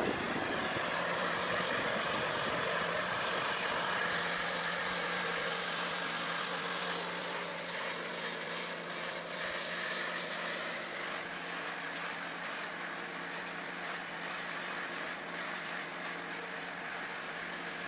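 Kärcher K2 compact electric pressure washer running steadily, its high-pressure water jet blasting a red brick: a constant motor and pump hum under the hiss of the spray. This is a pressure test to see whether the jet can cut the brick; it only chips the brick slowly because the spray comes out spread rather than as a pinpoint jet.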